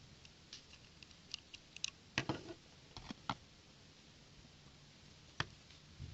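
Small plastic building bricks clicking and tapping as they are handled and fitted together: a run of light clicks, a few louder ones around the middle, then one sharp click near the end.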